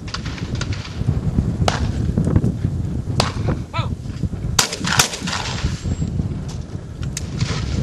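Clay-target shotgun shots: several sharp reports, the loudest a pair in quick succession a little past halfway, a shooter firing both barrels. A short voice call comes just before the pair.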